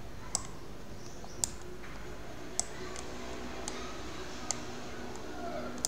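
Computer mouse clicking: about six single sharp clicks at irregular intervals of roughly a second, as pen strokes are drawn on screen, over a faint steady hum.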